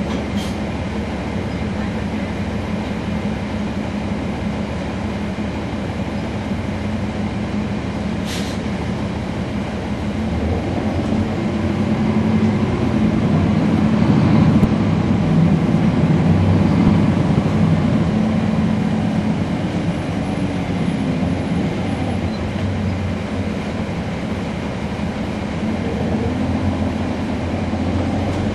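Cummins ISL9 diesel engine of a 2012 NABI 40-SFW transit bus running steadily, then pulling harder from about ten seconds in as the bus accelerates, its pitch and loudness climbing for several seconds before easing back.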